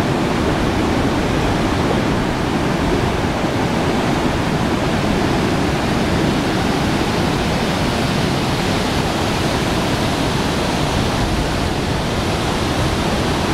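Water rushing steadily through the dam, a loud even rush with no breaks.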